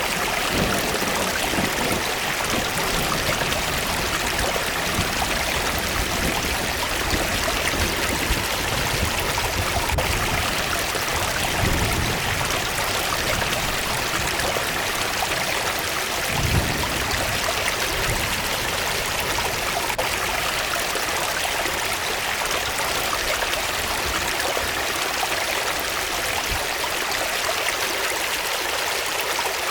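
Waterfall in a forest: a steady, even rush of falling water, with now and then a brief low rumble.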